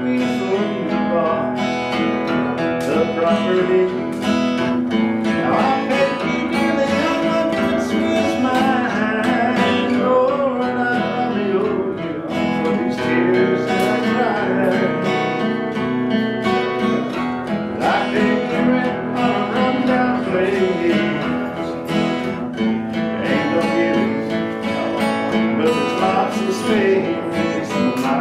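Two acoustic guitars playing together, an unbroken instrumental of strummed and picked notes with occasional sliding notes.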